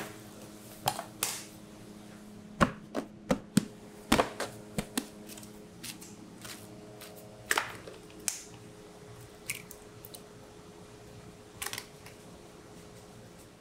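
Bakery work sounds: a dozen or more scattered knocks and taps of dough, hands and a steel ring cutter on metal trays and a board, over a steady hum from kitchen equipment.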